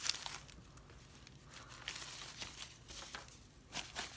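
Crumpled paper wrapping rustling and crinkling as it is handled, in about five short bursts with quieter gaps between.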